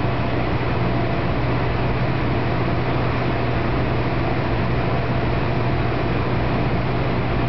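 Swim tunnel respirometer's motor driving the water flow: a steady low hum under an even rushing noise, unchanging throughout.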